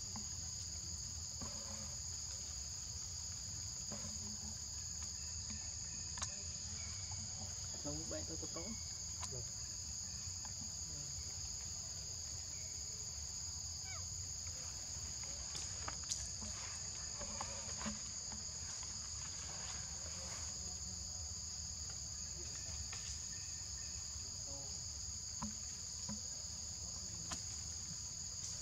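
Steady, high-pitched drone of insects, two continuous tones, under a low background rumble, with a few faint clicks and taps scattered through.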